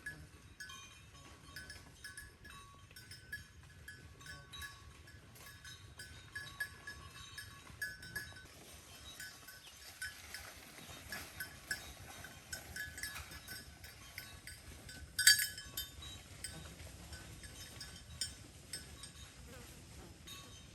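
Cattle chewing hay: a steady run of soft crunching clicks. About fifteen seconds in there is one louder, sharp clank.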